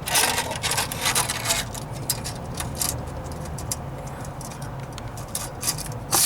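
Light clicks and rubbing of hand-handling during measuring, bunched in the first second and a half and again near the end, over a low steady hum.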